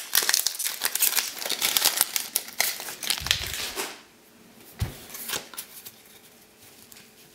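A Japanese Pokémon booster pack's foil wrapper crinkling and tearing as it is pulled open by hand, for about four seconds. Then it goes quiet, with a couple of soft thumps and light handling of the cards.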